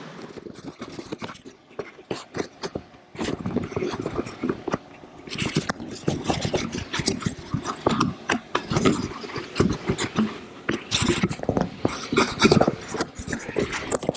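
Irregular clicking, knocking and scraping from hands and tools working on parts around the AC compressor.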